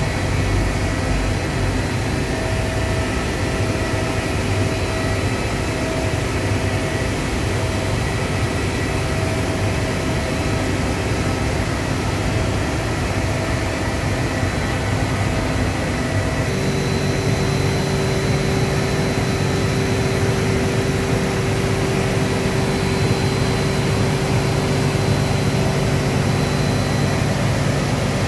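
Fluidized-bed sawdust dryer plant running: loud, steady machine noise from its industrial fans and hot-air ducting, with several steady hums mixed in. About halfway through, the mix of hums changes and a new steady tone comes in.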